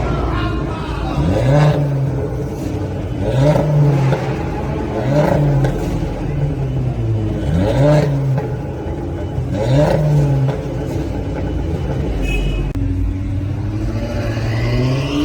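Modified car engine revved in short blips, about five or six quick rises and falls, then a longer rev climbing near the end.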